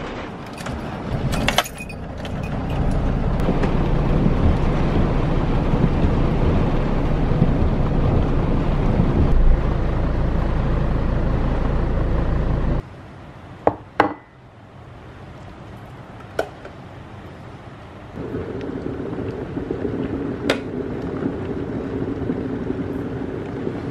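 Car cabin noise while driving through heavy rain: road and rain noise. It cuts off abruptly about halfway through, followed by a couple of sharp clinks and then the steady hum of an electric kettle heating up.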